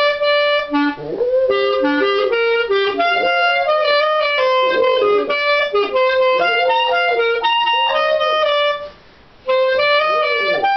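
A clarinet plays a melody, with a brief pause near the end. A small dog howls along with it, its wavering howls rising and falling among the notes; one comes just after the pause.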